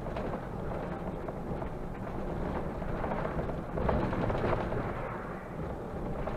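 Mercedes-Benz Conecto city bus on the move, heard from the driver's cab: a steady rumble of engine and road noise with frequent rattles and knocks, growing louder about four seconds in.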